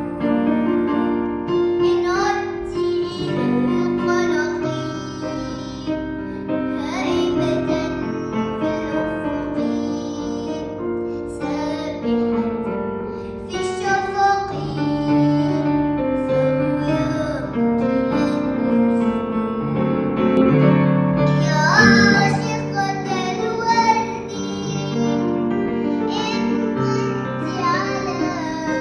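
A young girl singing a melody over keyboard chords.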